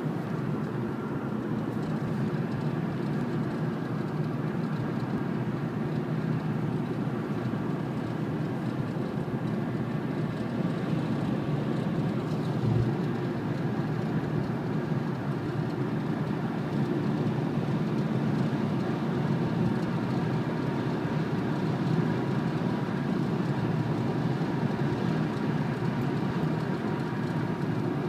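Ford Focus Mk2 cabin noise while driving at speed: steady road and engine noise with a rattle that the owner places under the passenger-side dashboard and that appears only above 60 mph. A single thump about halfway through.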